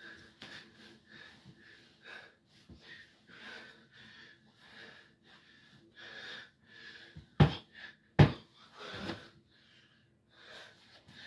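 A man panting hard for breath after exertion, in quick, wheezy, audible puffs about two a second. Two sharp knocks come about seven and eight seconds in.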